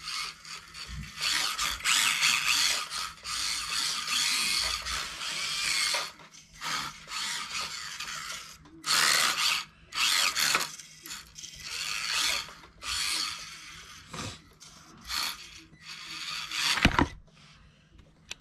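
Kyosho Mini-Z RWD Audi R8 radio-control car's small electric motor and open gearbox whining in repeated bursts as the car is driven in short spurts of throttle. One sharp knock comes near the end.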